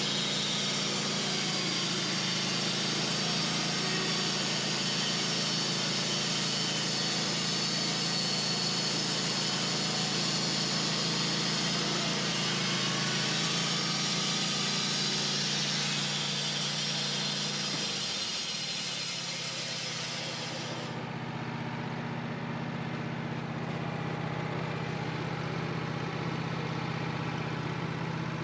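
Wood-Mizer band sawmill running, its engine at a steady pitch while the band blade cuts through a honey locust log with a dense high hiss. About 21 seconds in, the cutting hiss stops suddenly as the blade comes out of the log, and the engine runs on.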